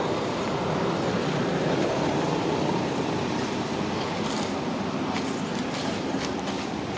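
Steady vehicle noise, swelling a little a second or two in, with a few faint clicks in the second half.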